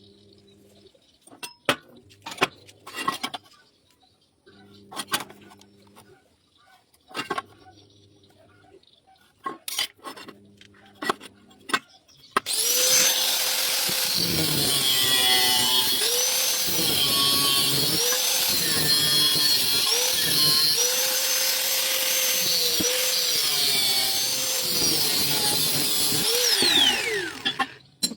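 Scattered knocks and clicks of metal parts being handled. Then, about twelve seconds in, a loud electric angle grinder runs on steel pipe, its motor pitch sagging and recovering repeatedly as it bites into the metal, before it winds down near the end.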